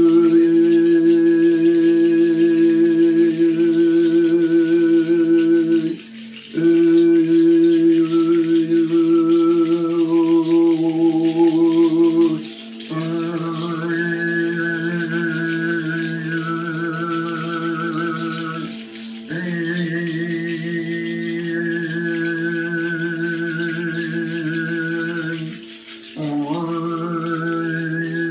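A shaman's voice chanting in long held notes on a steady pitch, each phrase about six seconds with a short breath between, over a continuous low drone.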